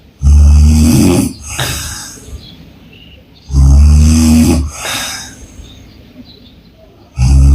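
A woman snoring with her mouth open: three loud, low-pitched snores about three and a half seconds apart, the last starting near the end. Each of the first two is followed by a softer, breathy puff of air.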